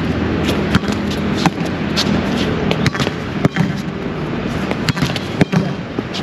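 A volleyball struck again and again as two players pass it back and forth: a run of sharp, irregular slaps and knocks over steady background noise.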